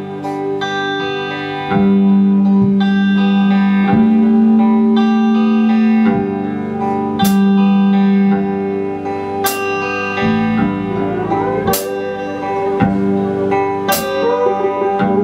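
A live blues band playing an instrumental passage led by electric guitar, with sustained notes and some bending in pitch. Cymbal crashes come about every two seconds in the second half.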